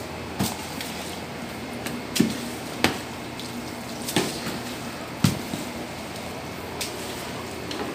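Several sharp knocks and taps at irregular intervals over a low steady background noise, the loudest about five seconds in.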